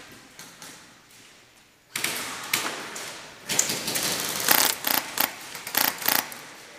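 Airsoft guns firing: after a near-quiet start, irregular sharp snaps and knocks set in about two seconds in and keep coming.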